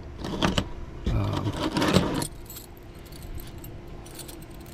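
Set of small Craftsman ignition wrenches jingling and clinking together as they are handled, for about two seconds, then only a few faint clicks.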